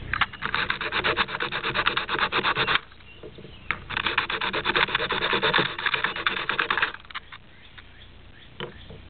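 Plastic Rubik's cube corner piece rubbed fast back and forth on sandpaper to take the bumps off its faces. It comes in two spells of rapid scratchy strokes of about three seconds each, with a gap and a few light knocks between.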